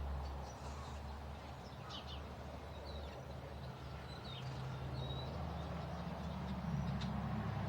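Small birds chirping: a scatter of short, high chirps, most of them in the middle seconds, over a low steady hum.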